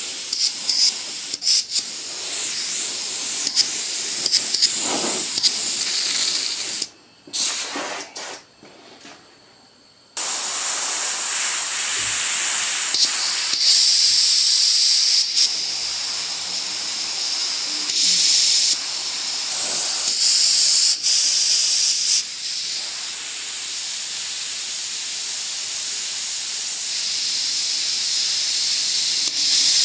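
Airbrush spraying paint: a loud, high air hiss that swells and eases. It cuts out for about three seconds a quarter of the way in, then resumes.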